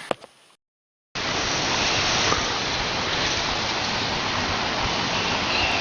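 A lawn sprinkler spraying water: a steady hiss that starts abruptly about a second in, after a brief silent gap.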